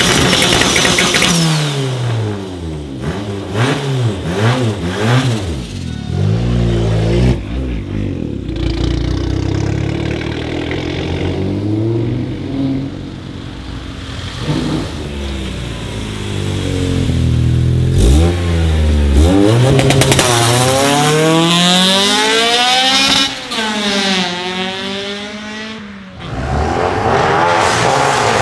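Honda Civic four-cylinder engines revved hard: a run of quick rev blips that rise and fall, then a car accelerating away up through the gears, its pitch climbing and dropping at each shift. A single sharp crack comes about two thirds of the way in.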